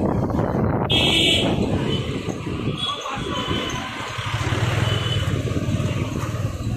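A motorcycle riding through town traffic: steady engine and road noise with wind on the microphone, and a short high horn beep about a second in.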